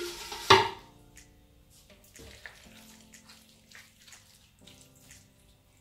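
A stainless steel pot clanks once, loudly, about half a second in, then a spoon scrapes and clicks softly as the last of a thick vegetable soup is scooped from the pot into a plastic container, with faint music underneath.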